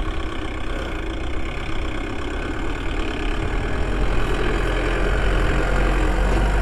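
Mahindra jeep engine running as it climbs over rocks on a dirt track, growing louder as it comes closer, with a steady low hum that strengthens in the second half.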